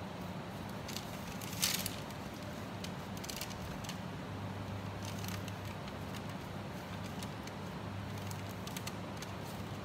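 Light crackling, rustling and a few short clicks as a silicone pastry brush dabs glaze over a folded pizza on parchment paper, the sharpest click about one and a half seconds in and more near the end, over a steady low hum.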